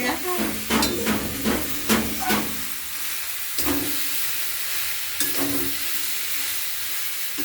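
A spatula scraping and stirring a spinach, radish, potato and prawn curry in a frying pan, about three strokes a second, then the vegetables sizzling steadily in the oil as the stirring stops about two and a half seconds in.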